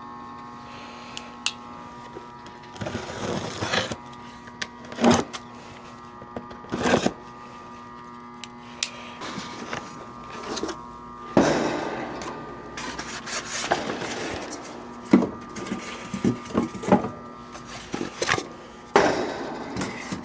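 Hand work on parts: scattered clicks and knocks with stretches of rustling as the new condenser fan motor and its wiring are handled, over a steady background hum.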